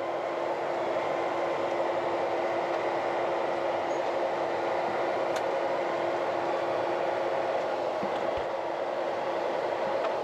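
Grain-bag unloading machinery running steadily as soybeans are emptied from the storage bag into the grain cart: an even mechanical rush with a steady hum that fades over the first few seconds.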